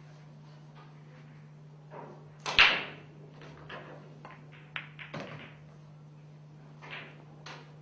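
Pool balls being played: the sharp click of the cue striking the cue ball a little past halfway, then balls clicking together and off the cushions several times. A louder single knock comes earlier, about two and a half seconds in.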